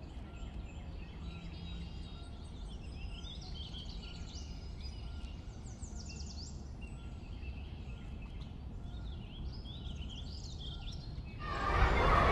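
Many small birds chirping and twittering in quick, rising and falling calls over a steady low rumble. Near the end a louder rushing noise swells in and covers them.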